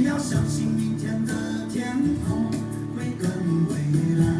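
Recorded music with strummed acoustic guitar, played back through the PDP8000 sound-effects processor set to its flat music EQ mode.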